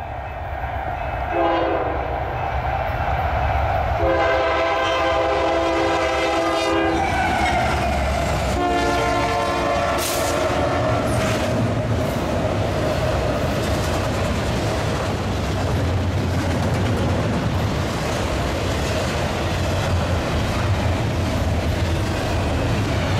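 Union Pacific diesel locomotive horn on a double-stack container train: one short blast, then two long blasts. After the blasts, the locomotives and stack cars roll past with a steady rumble of wheels on rail.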